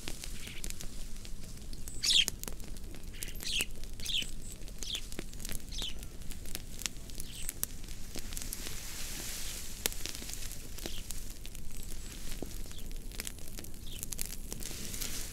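Wood fire crackling, with sharp pops and snaps scattered throughout. A bird chirps several times with short falling notes, mostly in the first half.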